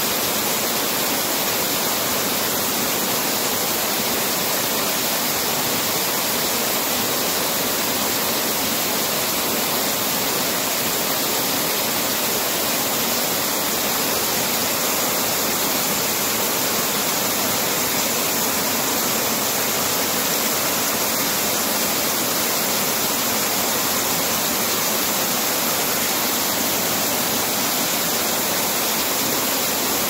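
Small waterfall cascading over rocks into a shallow stream: a steady, unbroken rush of falling and running water.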